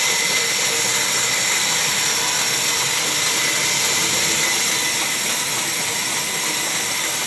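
Large vertical band saw running, its blade cutting lengthwise through a log with a steady high hiss.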